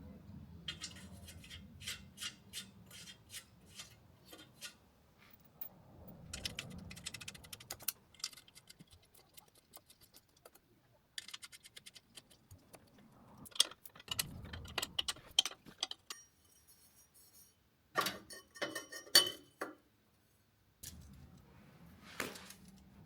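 Metal clinking and clicking from hand work on steel exhaust pipe pieces: several runs of quick light clicks, then a few sharp ringing metal knocks toward the end.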